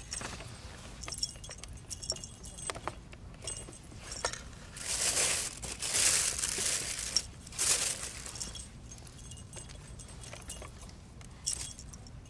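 Rustling and crinkling as a cat paws at a wand toy's crinkly green strips inside a cardboard box, with light clicking and scraping. The rustle comes in irregular bursts and is loudest for a couple of seconds around the middle.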